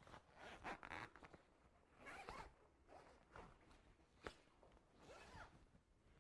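Zipper of a plastic body bag being pulled closed in several short, faint strokes, with a sharp click about four seconds in.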